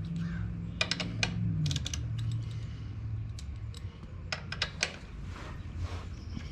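Scattered sharp clicks and taps of a hand tool working the 10 mm bolts, in a few quick groups, over a low steady hum.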